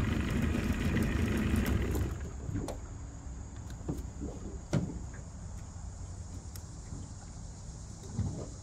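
Johnson 25 hp outboard motor idling, then cutting off about two seconds in. After it stops come a few scattered knocks, the loudest about halfway through, and a dull thump near the end.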